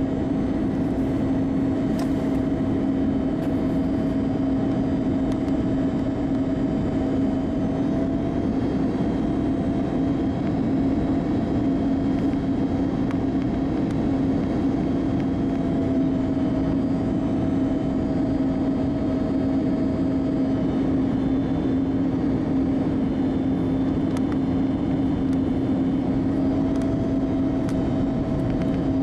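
Cabin noise inside an Airbus A321neo on final approach: the jet engines running at steady approach power over the rush of airflow, a constant low hum with a higher engine tone that shifts slightly in pitch now and then.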